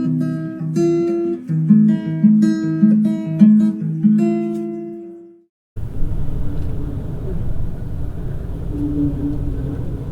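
Acoustic guitar music, picked notes ending on a held note that fades out about five seconds in. Then a sudden switch to a low, steady outdoor rumble of wind buffeting the microphone.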